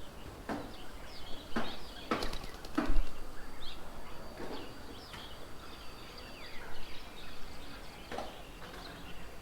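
Birds at a feeding table chirping and calling, with several louder short sounds in the first three seconds and another about eight seconds in.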